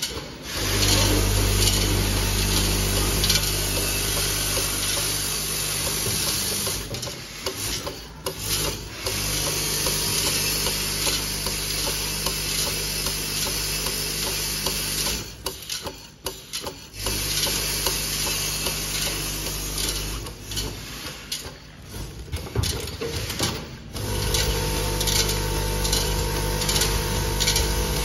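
Automatic screw counting and packing machine running: a steady machine hum with a dense rattle of screws moving along its vibrating feed track. The sound drops out briefly a few times, and near the end the hum changes pitch.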